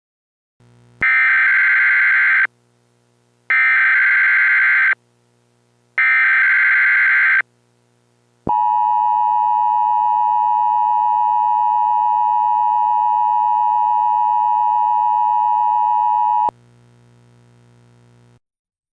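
Emergency Alert System header: three bursts of screeching digital data tones, each about a second and a half long, followed by the steady two-tone EAS attention signal held for about eight seconds, which then cuts off.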